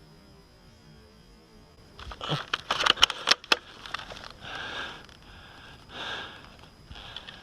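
A rapid cluster of sharp clicks and knocks about two seconds in, followed by three or four soft sniffs or breaths close to the microphone.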